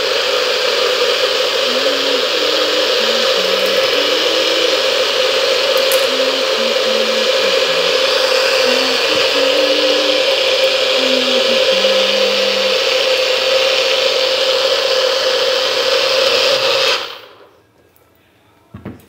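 Bullet-style personal blender running steadily at full speed, puréeing a mixture in its cup, then switching off abruptly about 17 seconds in.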